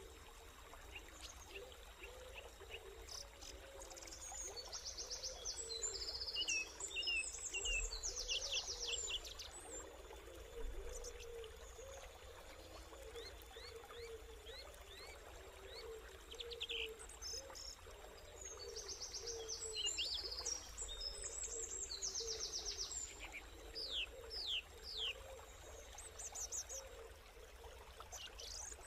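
Wild birds singing in bursts of rapid trills and quick falling chirps, loudest in a spell a few seconds in and again about two-thirds through, over a steady murmur of running river water.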